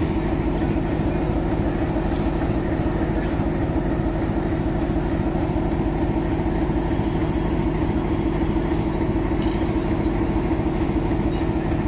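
Diesel engine of an old Bangladesh Railway diesel-electric locomotive running steadily, a constant low hum with no change in pace.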